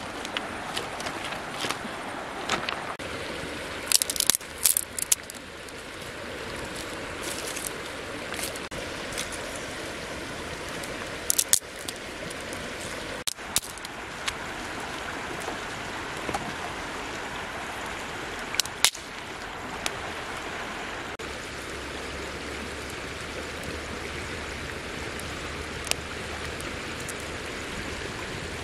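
A river running steadily, with sharp snaps and knocks of dry sticks being broken and cut with a knife, scattered through the first two-thirds.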